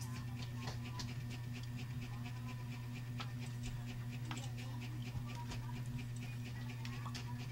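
Rapid, even panting, about five breaths a second, over a steady low hum.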